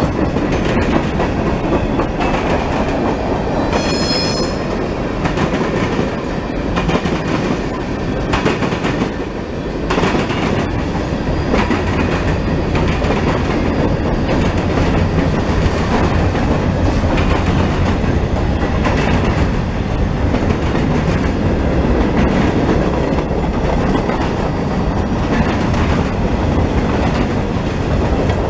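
Freight train cars rolling past close by: a steady rumble with the clickety-clack of wheels over the rail joints, and a brief high squeal about four seconds in.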